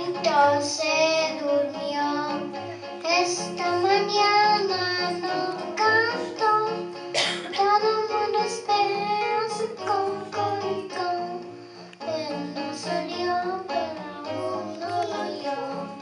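A child singing a song into a microphone over instrumental accompaniment with a steady, repeating bass line.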